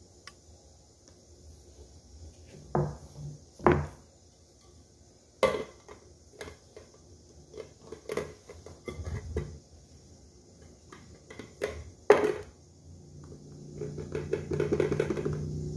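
An aluminium ring mould and a plate knocking and clinking as they are handled, with a few sharp knocks and lighter clicks. Near the end a rubbing, shaking sound builds as the plate and pan are turned over together to unmould a dessert.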